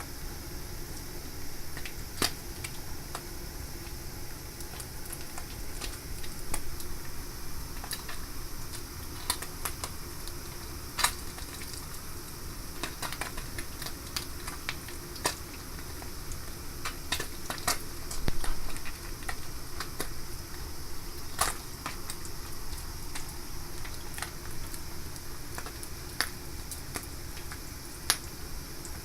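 Scattered light clicks and taps at irregular intervals over a steady low hum.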